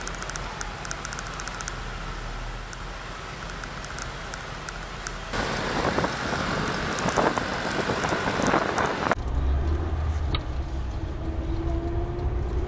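Road traffic and vehicle running noise recorded by vehicle-mounted cameras, changing abruptly at two clip cuts. The middle stretch is louder, with several knocks. The last part is a low engine rumble with a tone that rises slowly near the end.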